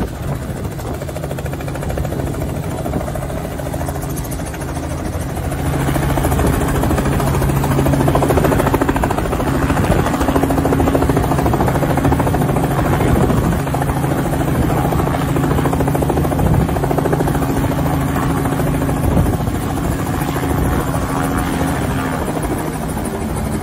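Tour helicopter's engine and rotor running steadily with a constant low hum, growing louder about six seconds in.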